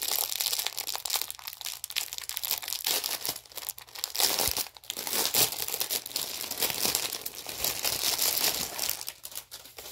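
Clear plastic packaging bag crinkling and rustling as hands open it and pull a folded item out, with a short lull about halfway through.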